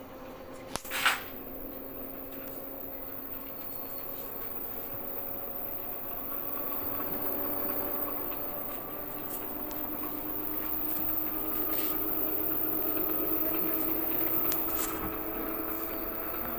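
Washing machine drum and motor spinning up, a steady whine slowly rising in pitch, after a sharp click about a second in. The machine can't reach full spin speed because of a blockage.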